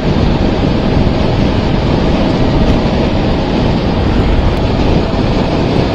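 Steady rush of wind over the microphone on a motorcycle riding at highway speed, with road and engine noise underneath.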